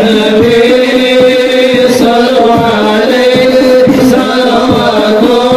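Hadroh music: sholawat chanted in a sustained, wavering voice over the strokes of rebana frame drums.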